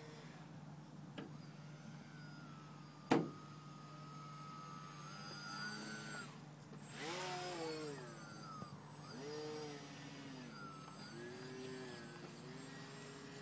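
Electric RC foam plane's motor and propeller whining in flight, the pitch rising and falling with the throttle, with a rushing whoosh as it passes close overhead about halfway through. A single sharp knock about three seconds in, over a steady low hum.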